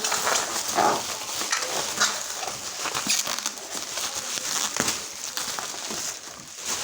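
Packaging being handled during unboxing: irregular crinkling and rustling of wrapping, with scattered sharp clicks and taps.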